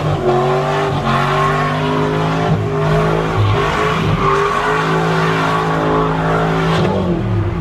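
A car doing donuts: the engine is held at steady high revs, dipping and coming back a few times, with tyre squeal.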